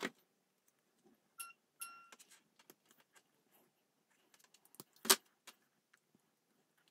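Small metal parts being handled: two brief ringing chinks about a second and a half in, then scattered light clicks and one sharper knock about five seconds in.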